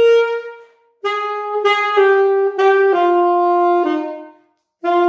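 Alto saxophone playing a phrase of a swing-style exercise in swung eighth notes. A held note dies away, then after a short break comes a run of notes stepping mostly downward, and after another brief pause the next phrase starts near the end.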